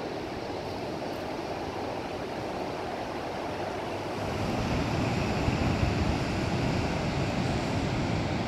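Pacific surf breaking on a sandy beach: a steady rushing wash that grows louder and deeper about halfway through.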